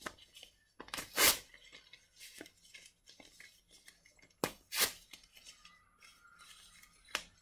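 Printed paper wrapping being torn apart by hand: a few short rips, the loudest about a second in and at four and a half to five seconds, with quieter paper handling between.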